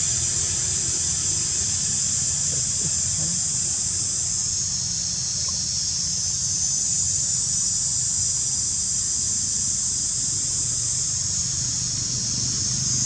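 Steady, high-pitched buzzing of an insect chorus, with a low rumble underneath.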